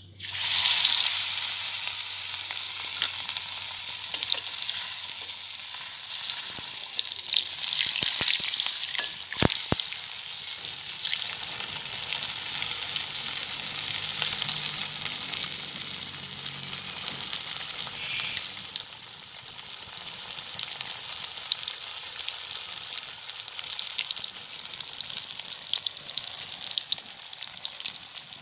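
Marinated, cornflour-coated quail pieces deep-frying in hot oil in a kadai. The oil starts sizzling suddenly as the pieces go in, then keeps up a steady hiss, with a few sharp pops about eight to ten seconds in.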